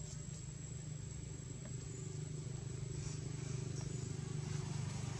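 A motor vehicle's engine running with a steady low hum, growing gradually louder toward the end.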